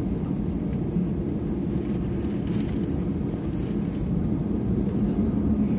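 Airliner cabin noise during takeoff: a steady low engine drone with a constant hum.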